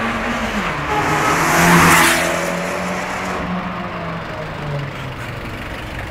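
Fiat Abarth car driving past close by: its engine note and tyre rush swell to a peak about two seconds in, then ease off while the engine hum carries on.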